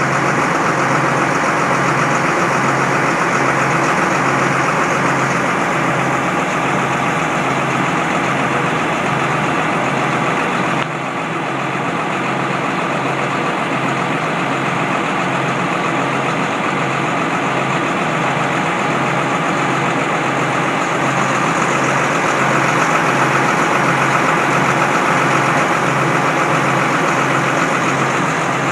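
John Deere harvest machinery running steadily, a dense mechanical drone with an even low throb. It drops slightly in level about eleven seconds in.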